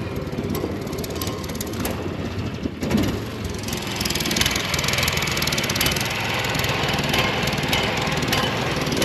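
Small motorboat engine running steadily as the boat gets under way, with a hiss of water and wind that grows louder about four seconds in.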